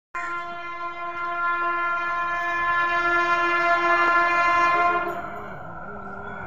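Horn of an approaching WAP-7 electric locomotive hauling an express, sounded in one long steady blast of about five seconds that grows louder. After the horn stops, the running noise of the oncoming train starts to build near the end.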